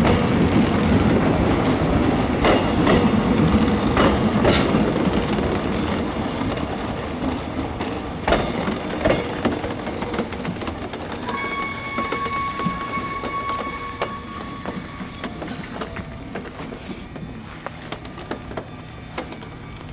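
Korail passenger coaches rolling along the platform, wheels clicking over rail joints, the running noise getting steadily quieter. Just past the middle, a steady high-pitched wheel squeal lasts for a few seconds.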